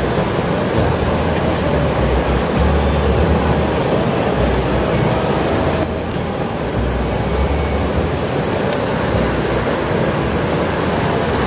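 Steady rush of river water pouring over a low concrete weir, with a low rumble that comes and goes underneath.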